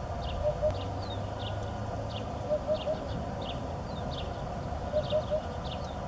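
Hoopoe calling its low 'oop-oop-oop': short series of two or three hoots, repeated about every two and a half seconds, with other small birds chirping high in the background.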